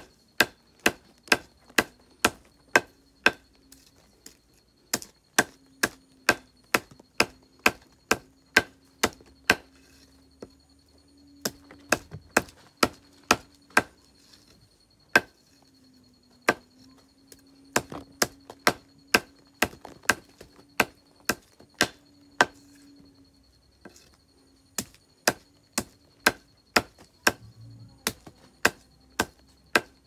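A heavy curved knife chopping green fodder stalks on a wooden block: sharp chops about two a second, in runs with a few short pauses.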